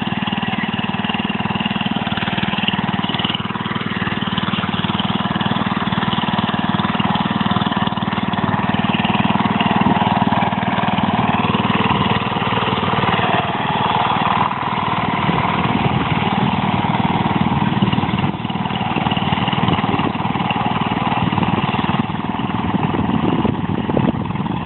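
Wheel Horse garden tractor engine running steadily.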